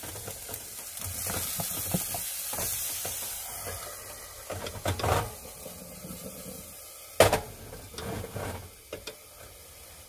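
Chicken and new potatoes sizzling in a hot, hinged, lidded camping frying pan on a gas stove. The sizzle is loudest in the first few seconds. Clunks follow, with a sharp metallic click about seven seconds in, as the closed pan's handles are worked.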